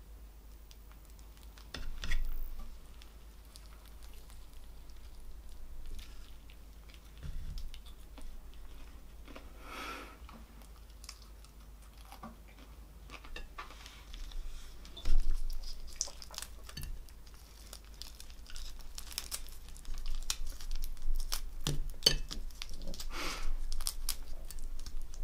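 Boiled prawns being shelled by hand, their shells crackling and tearing in irregular bursts, with chewing of the prawn meat in between.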